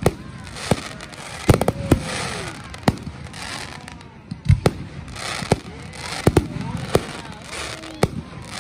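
Fireworks display at close range: about a dozen sharp bangs of aerial shells bursting at irregular intervals, some in quick pairs, with a steady hiss between them.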